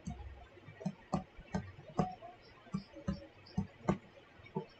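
Stylus tapping and clicking against a tablet screen while a word is handwritten, about ten sharp, irregular clicks.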